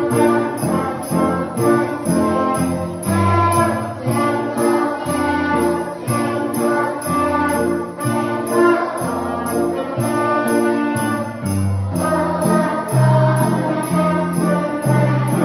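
A small children's brass group playing a Christmas tune, with piano accompaniment and sleigh bells jingling on a steady beat.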